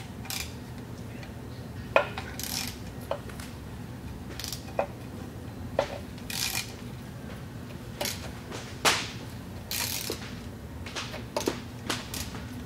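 Hand ratchet on an extension with an Allen socket, loosening transmission cover bolts: irregular sharp metal clicks and brief rasping ratchet strokes, a few seconds apart.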